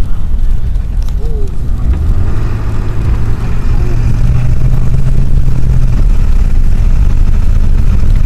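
Four-wheel-drive vehicle pulling away on snowy, icy road, heard from inside the cabin: a steady low engine hum over heavy road rumble, the engine note holding steady for a few seconds midway.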